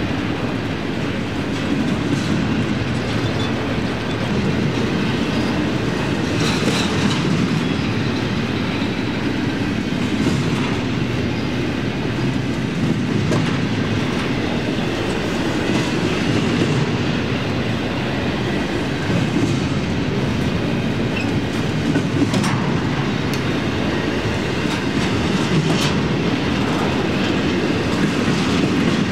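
Union Pacific intermodal freight train's cars rolling past, a steady heavy rumble with the wheels clacking over rail joints and a few sharper clicks along the way.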